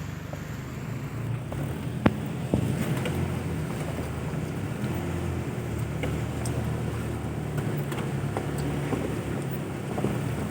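Toyota Land Cruiser Prado's 1KZ-TE 3.0-litre turbo-diesel engine running steadily as the vehicle drives off-road, with scattered rattles and knocks; a sharp knock about two seconds in is the loudest sound.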